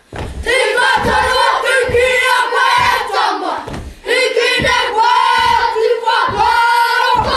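A group of children chanting a haka in unison, shouted Māori phrases in short bursts, with low thumps about once a second from stamping.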